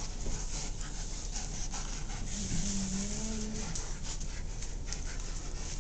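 Large shepherd dogs panting and scuffling as they play-wrestle, with one low, drawn-out whine from one of them lasting over a second.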